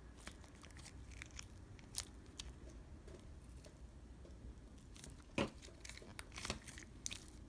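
Faint sticky clicks and pops of a stiff slime being pulled apart and pressed together in the hands, a few at a time, the loudest about five seconds in.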